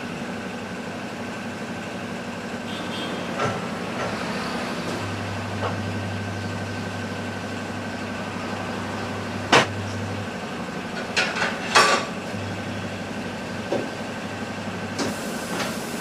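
A motorcycle tyre being mounted on a tyre-changer machine. The machine's motor hums in two runs, from about five seconds in and again after about twelve seconds, while the mounting bar and rim give a few sharp metal knocks and clanks, loudest near the middle.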